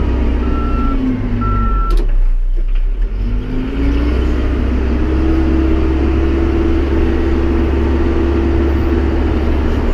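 Tractor loader-backhoe engine running under load as the front loader bucket takes a scoop of gravel. The engine pitch sags about two seconds in, then climbs and holds, and drops again near the end. Two high beeps sound in the first two seconds, with a sharp click just after.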